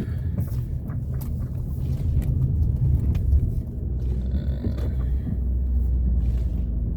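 Low, steady rumble of a car's engine and tyres heard from inside the cabin while driving slowly, with a few faint scattered clicks.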